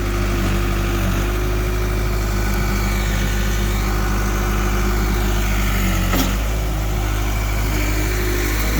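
A motor engine idling steadily with a low, even hum, with a single sharp knock about six seconds in.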